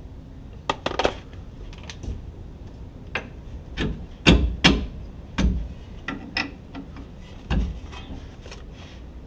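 Irregular metal clinks, knocks and scraping as a bolt-on metal shock skid plate is worked against a truck's rear lower shock mount to line up its bolt holes, with a few louder knocks a little past the middle.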